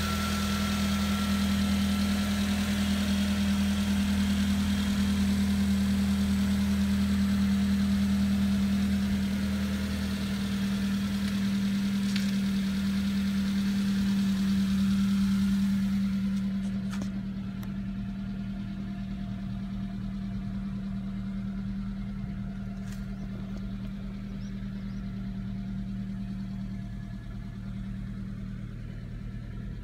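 Subaru Sambar kei truck's engine idling steadily. It sounds duller from about halfway through, as heard from inside the cab.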